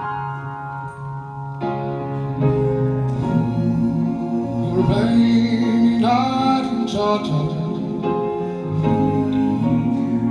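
Male vocal group singing close harmony into microphones. Held chords change every second or so, and from about halfway through a lead voice slides up and down over them.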